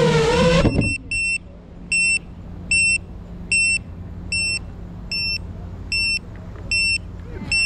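Geprc Mark5 FPV quadcopter's motors whining with a wavering pitch, then cutting out sharply under a second in as the quad is disarmed. After that, the drone's buzzer beeps steadily, about once every 0.8 s, over a faint low hum.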